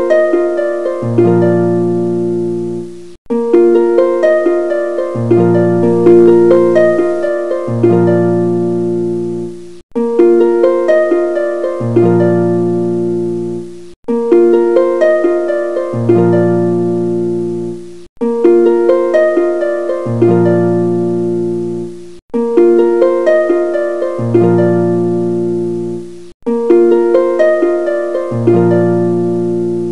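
Background music: a gentle plucked harp-like melody repeating in short phrases of decaying notes, a pause of silence between some phrases.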